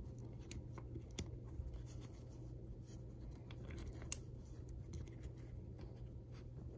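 Small magnetic building blocks being handled and clicked together: scattered light clicks and rustles, with one sharper click about four seconds in, over a faint steady hum.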